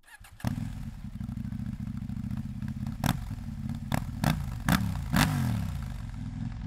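KTM Duke 890 R's parallel-twin engine idling, then blipped five times in quick succession. Each throttle blip is a sharp bark that rises and falls back to idle.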